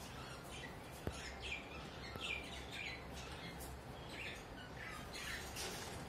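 Rosy-faced lovebirds chirping: a run of short, high chirps, with one sharp click about a second in.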